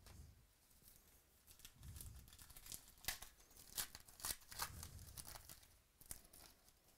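Faint tearing and crinkling of a foil trading-card pack wrapper being ripped open by hand, a run of sharp crackles.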